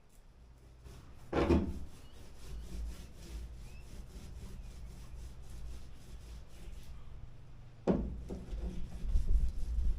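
Rough scraping and rubbing as the thermalite transom core panel is worked and handled against the fibreglass hull, with two louder scrapes or knocks about a second and a half in and near eight seconds. The rubbing grows busier near the end.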